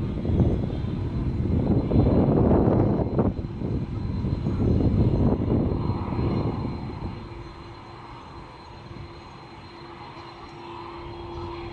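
Jet airliner engines passing close by, a loud low rumble that fades after about seven seconds into a quieter steady hum with a held tone.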